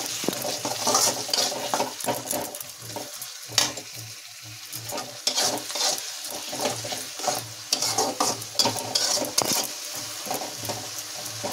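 Spiced onion-tomato masala sizzling in a steel kadai while a spatula stirs and scrapes it in repeated, irregular strokes, one sharper scrape about three and a half seconds in. The masala is being fried down until the oil separates.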